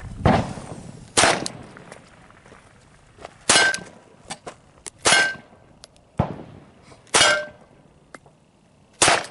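A 9mm pistol fires about seven single shots a second or two apart at an AR500 steel armor plate at close range. Each hit gives a metallic clang from the plate with a brief ring after it.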